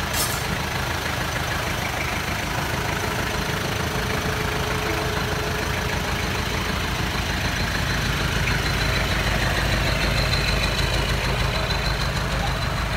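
4x4 pickup truck engine idling steadily in heavy rain, its low hum under the constant hiss of the downpour.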